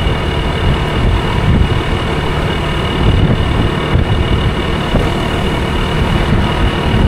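Honda scooter being ridden at a steady cruising speed, its engine and drive running evenly under a heavy, irregular wind rumble on the microphone.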